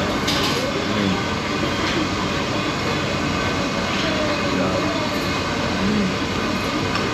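Steady background din of a busy noodle shop: a constant rush of air-conditioning or ventilation noise with the murmur of other diners' voices.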